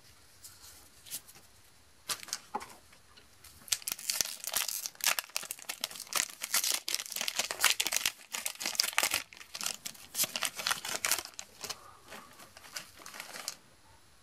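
Foil Magic: The Gathering booster pack wrapper being torn open and crinkled by hand: a run of crackling and tearing from about two seconds in until shortly before the end.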